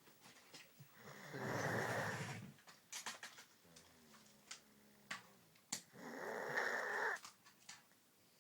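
A sleeping person snoring: two loud snores about five seconds apart, each lasting over a second, with a fainter, lower breath between them.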